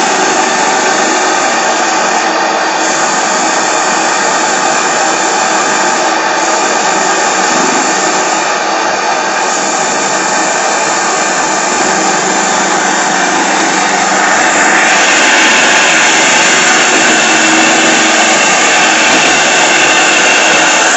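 PMR V-twin double-acting oscillating steam engine running fast on steam, a steady hissing whir. It gets a little louder and brighter about two-thirds of the way through.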